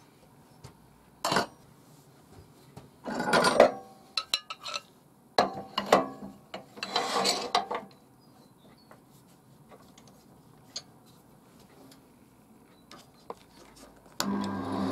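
Metal clanking and scraping as the lathe's tool rest is set and clamped in front of the chuck, in several short bursts over the first half. Near the end the wood lathe's motor starts and runs with a steady hum.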